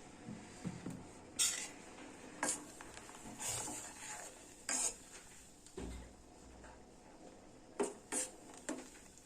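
A spoon stirring milk in a pot, clinking and scraping against the pot's side in short, irregular strokes about a second apart, as jaggery powder is stirred into the milk.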